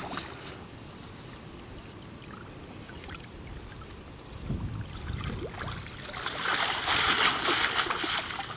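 Water splashing as a bloodworm scraper, a metal-mesh box on a pole, lands in the pond at the start. Then, from about six seconds in, water pours and splashes out through the mesh as the box is dragged up out of the water at the bank.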